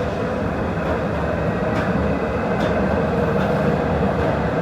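Steady running rumble of a moving vehicle, with faint short clicks recurring a little more often than once a second.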